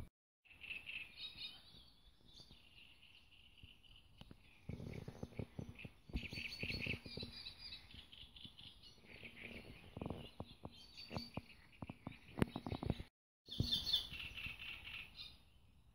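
Songbirds singing in a forest, in repeated high chirping phrases. Twice, bursts of low crunching and crackling come with them, like steps through dry forest litter.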